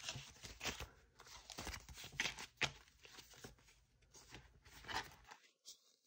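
Paper banknotes rustling and a clear plastic binder pocket crinkling as cash is handled and slipped into it, in short, scattered rustles.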